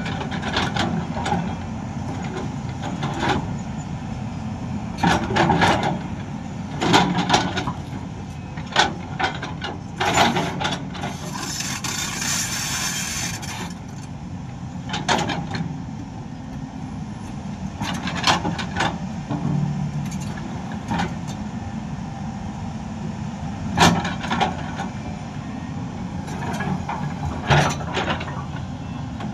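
Heavy diesel construction machinery running steadily, with repeated sharp knocks and clanks over the engine sound and a hiss of about two seconds near the middle.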